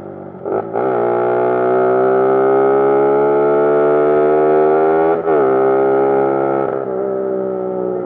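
Suzuki Raider 150's single-cylinder engine through a Charama V9 open aftermarket exhaust, very loud, accelerating with a steadily rising pitch. It shifts up once about a second in and again about five seconds in.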